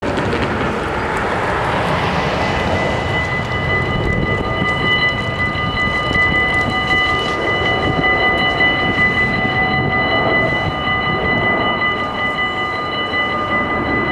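Electronic warning bells of a Dutch automatic half-barrier (AHOB) level crossing start ringing about two seconds in, a steady high ringing that signals the crossing closing for an approaching train. A car drives past at the start.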